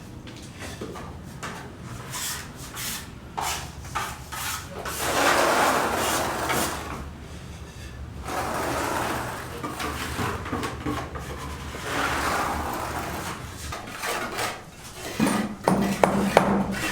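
Long scraping or rubbing strokes, each lasting a second or two, with scattered knocks in between and a cluster of sharp knocks near the end.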